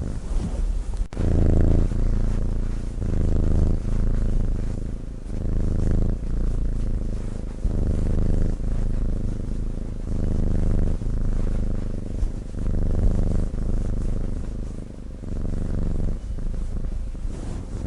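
A sleeping cat snoring: a low, rumbling vibration that swells and fades with each breath, roughly one pulse every second and a half.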